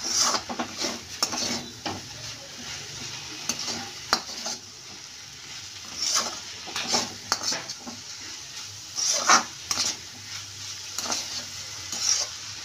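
Steel spatula stirring and scraping grated potato strands around a metal kadhai, in irregular bursts of scrapes and clinks against the pan. Beneath them, a steady faint sizzle of the potato frying in a little oil.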